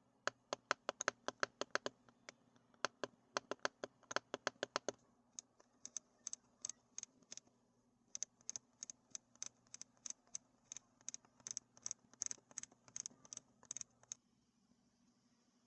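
Epomaker RT100 mechanical keyboard being clicked in a sound test: a fast run of key clicks with some body for about five seconds, then thinner, higher clicks until they stop about a second before the end.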